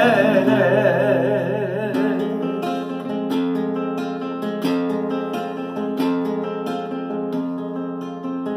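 A man's voice holds a long sung note with vibrato over a classical guitar. After about two seconds the voice stops and the guitar carries on alone, strumming in the rhythm of an Argentine gato.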